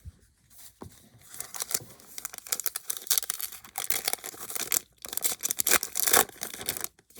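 Foil wrapper of a baseball card pack crinkling and tearing open: a run of crackly rustles with a brief pause midway.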